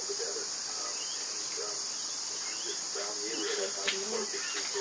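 Steady high-pitched drone of an insect chorus, crickets or cicadas, with faint scattered bird calls and a single sharp click about four seconds in.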